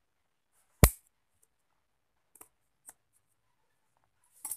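Scissors snipping macrame cord ends: one sharp, loud snip about a second in, a few faint snips after it, and a quick cluster of snips near the end.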